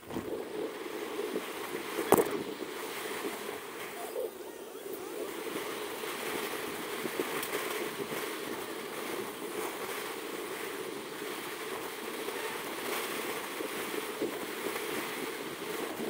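Steady rushing wind and road noise picked up by a camera while riding an electric skateboard, with one sharp click about two seconds in.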